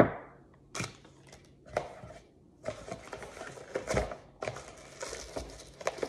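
A sharp knock as two large batteries are stood down on a wooden table, a few light clicks, then white packing material crinkling and rustling as it is pulled from a cardboard box, from about three seconds in.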